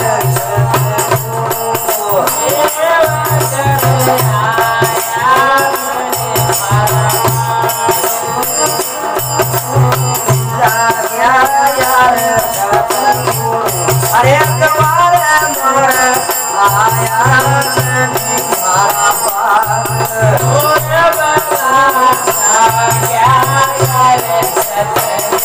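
Rajasthani folk devotional music: a small bowed folk fiddle playing a wavering melody, with a jingling rattle from bells on the bow and men's voices singing along. A low hum swells and fades every two to three seconds.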